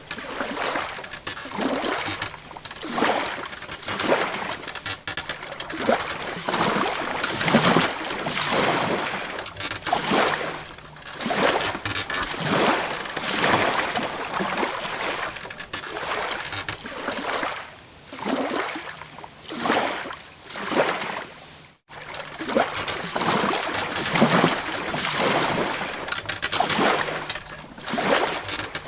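Sea water sloshing and splashing against the hull of a wooden boat, in irregular swells every second or two. The sound cuts out for an instant about two-thirds of the way through.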